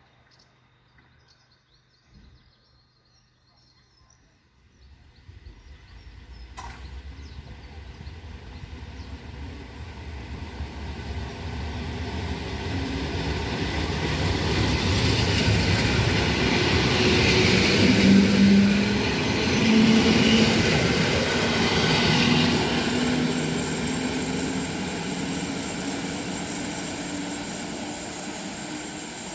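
EN57 electric multiple unit passing by: its running noise builds from near quiet to a peak about two-thirds of the way through, with a low steady hum among the rail noise, then slowly fades as the train draws away.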